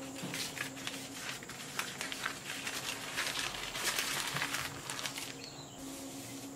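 Paper rustling and crinkling from a tear-off paper palette pad being handled: a used sheet comes away and the fresh sheet is smoothed flat by hand. There is a run of short scrapes and rustles, busiest in the middle.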